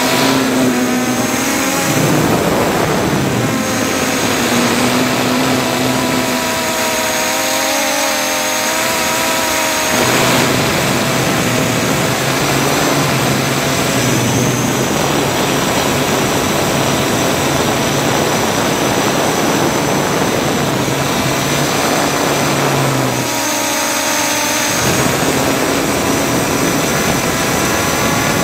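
Multirotor drone's electric motors and propellers running, picked up close by the drone's own onboard camera: a loud, steady buzz with several tones that step up and down in pitch every few seconds as the motor speeds change.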